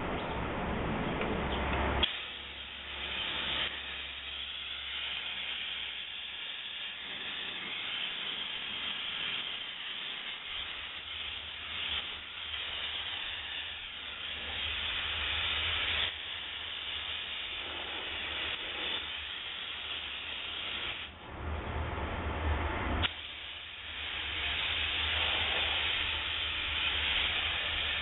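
Optima DMF steam cleaner's wand hissing as it sprays steam, starting about two seconds in and running in long stretches with a short break about three quarters of the way through.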